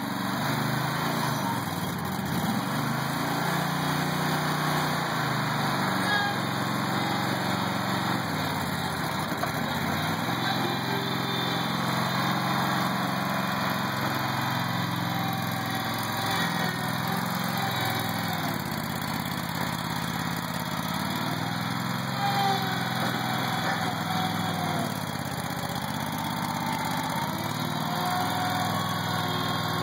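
Engine of a 2003 Terramite compact backhoe running steadily, its note shifting up and down a few times.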